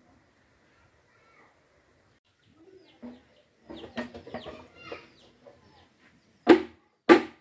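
Animal calls: a run of short calls with quick falling pitches, then three loud, sharp calls about half a second apart near the end.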